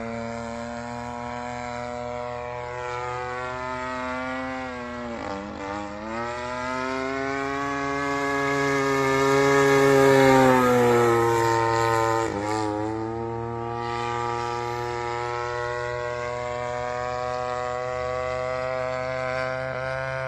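Radio-controlled aerobatic model plane flying, its engine and propeller droning. The pitch dips sharply and climbs back twice, about five and twelve seconds in, and the sound is loudest around ten seconds in as the plane passes close.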